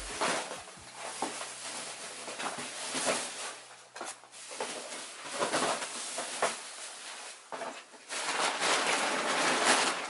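Irregular rustling and scuffing noises in clusters, loudest near the end.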